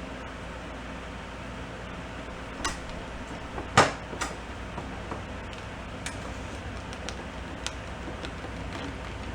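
A few sharp knocks and clicks of tools on the stuck crank of a seized Honda Cub 50 engine, one much louder strike about four seconds in. A steady hum from a shop fan and air conditioner runs underneath.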